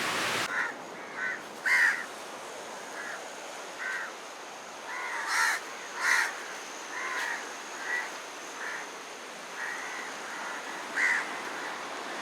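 Crow cawing repeatedly: a dozen or more short, separate caws at uneven intervals, a few of them louder than the rest, over a steady background hiss.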